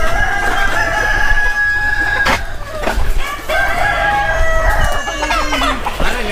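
Desi (gavran) roosters crowing from a flock of free-range country chickens: two long crows, one after the other, with hens clucking around them.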